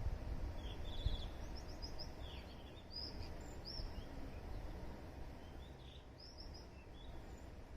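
Small birds chirping in short runs of quick high notes over a faint, low, steady rumble that fades slowly.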